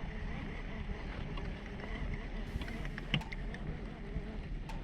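Kayak drifting on a river: a steady wash of moving water and wind on the microphone, with a couple of light clicks or knocks about three seconds in and near the end.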